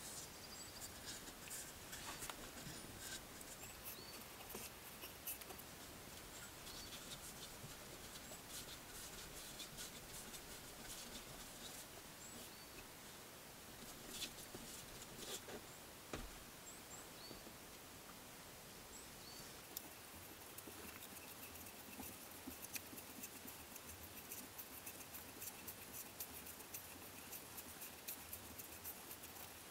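Quiet handling noises: light taps, scrapes and rustles as a bark-covered wooden pole is worked onto a nail in a log wall, thickening into a run of small clicks near the end.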